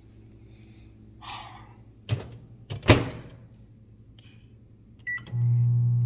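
Hamilton Beach microwave oven: two thumps about two and three seconds in, the second the louder, then a short keypad beep near the end, and the oven starts running with a loud steady hum.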